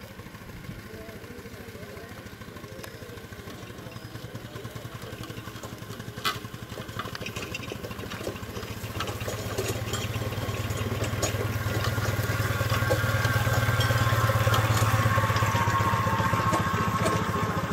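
Ride-on scale-model Case steam traction engine running under way, its exhaust beating in a quick, even rhythm that grows steadily louder as it draws near and passes close by. One sharp click about six seconds in.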